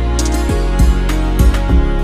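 Background music with sustained tones over a steady beat.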